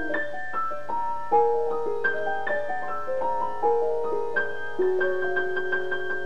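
Solo grand piano playing classical music: a line of notes moving in quick succession, then a rapidly repeated high note over lower notes in the second half.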